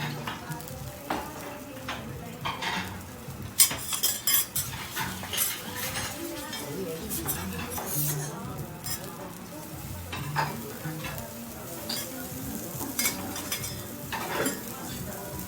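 Food sizzling on a teppanyaki griddle, with metal spatulas scraping the steel plate and clicking against it at irregular moments, a cluster of sharp clicks about four seconds in.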